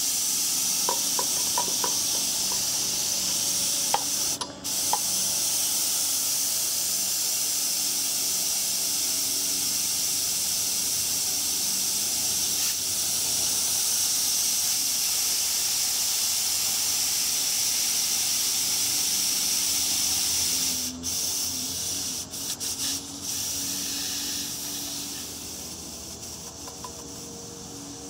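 Compressed nitrogen hissing steadily out of a loosened valve as the pressure-test charge bleeds off a mini-split heat pump's line set and indoor coil. The hiss breaks off briefly a few times and fades away near the end as the pressure comes down.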